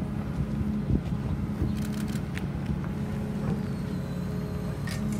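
A construction machine's engine running steadily, with a few faint clicks and knocks over it.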